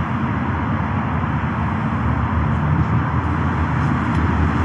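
Dense motorway traffic: a steady, unbroken drone of engines and tyres, strongest in the low end.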